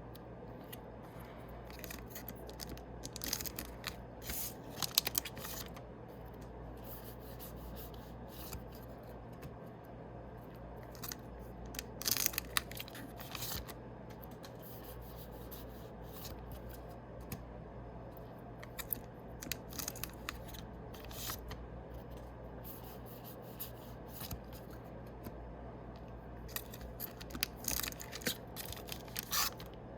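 Yu-Gi-Oh! booster packs being torn open and their cards handled, in short crinkly, rustling bursts every few seconds.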